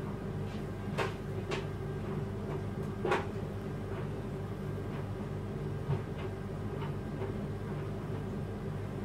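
Steady low background hum with a few light taps and clicks about a second, a second and a half and three seconds in, from small decorating tools being handled on a worktop.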